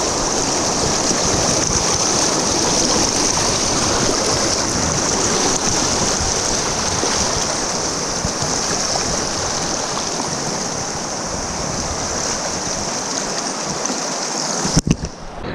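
Fast river water rushing and splashing past a small boat's hull close to the microphone, a steady loud hiss. Near the end there are two sharp knocks and the sound drops off suddenly.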